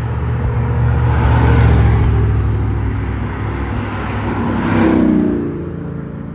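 Road traffic: cars passing on the street over a steady low engine rumble, with two swells as vehicles go by, the second with a slightly falling engine hum.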